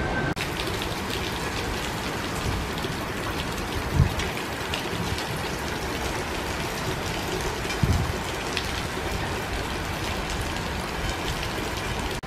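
Rain heard from inside a moving Intercity Notte train carriage: a steady hiss with a fine crackle of drops over the train's running noise, and two low thumps about four and eight seconds in.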